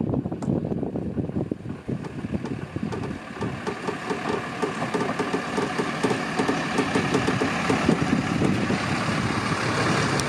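A one-ton Dodge pickup crossing a suspension bridge slowly, its engine running under a dense clatter and creaking from the bridge deck as it takes a load near its 8,000-pound limit. A run of regular knocks comes through the middle, and a hiss of tyres builds as the truck passes close by.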